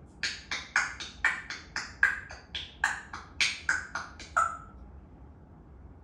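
African grey parrot making a rapid, even run of short, sharp clicks, about four a second, stopping after about four seconds.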